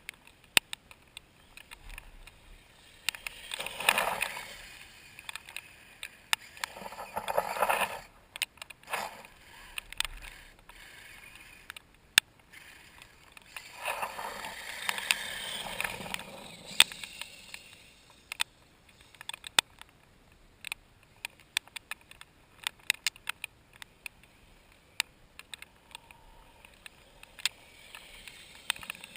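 Kyosho Blizzard radio-controlled snowcat's electric drive and tracks whirring in three bursts as it drives on icy, freezing-rain-glazed ground, with many sharp clicks and ticks in between.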